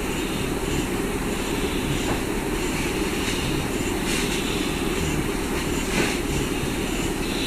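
Steady low rumbling background noise with no clear events, a faint tick or two now and then.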